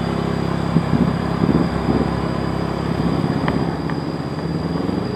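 Motorcycle engine running while riding at low speed, its note rising and falling briefly about a second in, with a couple of light clicks a little past halfway.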